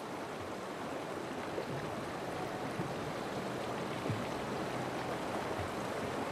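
A fast-flowing river rushing steadily.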